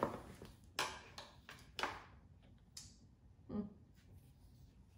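A car seat's LATCH strap connector clicking and knocking against the metal axle and frame of a car seat travel cart while it is being hooked on: a series of short, sharp clicks about one a second, one of them a duller knock.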